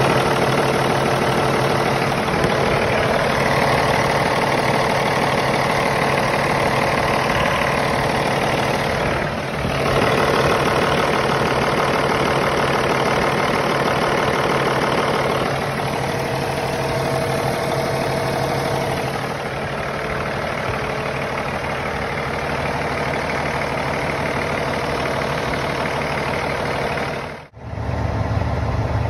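Heavy truck diesel engine idling steadily, heard close up in the engine bay, on a truck whose overheating the owner puts down to an EGR cooler problem. Near the end the sound cuts to the same engine idling lower and deeper, heard from behind the cab.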